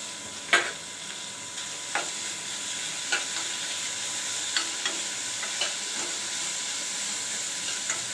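Chopped onions sizzling in hot oil in a stainless steel pot while being stirred with a metal spoon, which knocks against the pot every second or so, hardest about half a second in.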